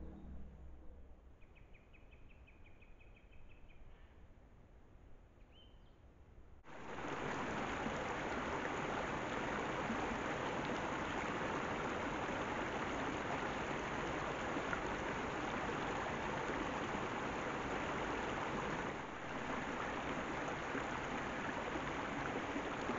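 Mountain stream rushing over rocks in a steady, loud wash that starts suddenly about seven seconds in. Before it, quiet open air with a few faint high bird chirps.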